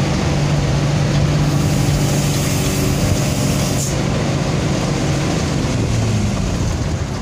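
Mitsubishi Fuso truck's diesel engine running under way, heard from inside the cab over steady road noise; the engine note drops lower about six seconds in.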